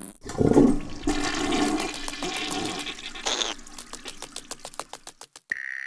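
Cartoon sound effect of rushing, swirling water like a toilet flush, turning into rapid clicking that fades away. A steady high tone starts near the end.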